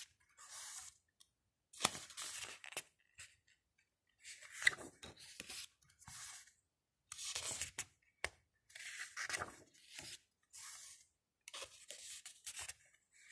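Photobook pages being turned one after another, each turn a short papery swish, about eight in a row with brief pauses between.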